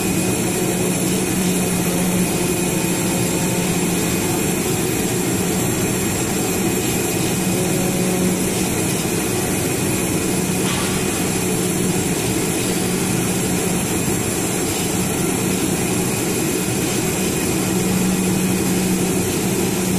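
A CNC oscillating knife cutting machine running as it cuts a coil car mat. It makes a steady mechanical hum and hiss, with a low tone that swells and eases a little now and then.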